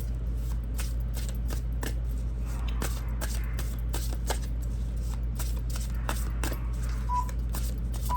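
Tarot cards being handled: a scatter of soft clicks and flicks from the cards over a steady low hum.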